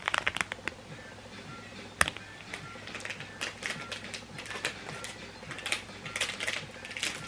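Small plastic seasoning packet from an instant-noodle kit crinkling and crackling in the hands as it is worked at and torn open, in irregular clusters of little clicks, with one sharp click about two seconds in.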